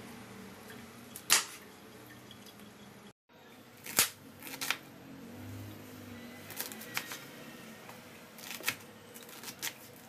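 A kitchen knife cutting cabbage on a plastic cutting board: several sharp, irregular knocks as the blade and cabbage pieces hit the board. The sound cuts out completely for a moment about three seconds in.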